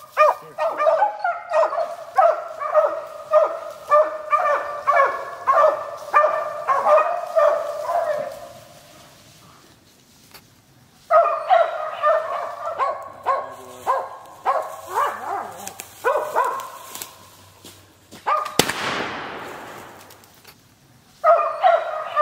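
Cur dog barking steadily at a treed squirrel, about two barks a second, pausing for a few seconds and then resuming. About 18 seconds in, a single loud flintlock rifle shot, and the barking starts again shortly after.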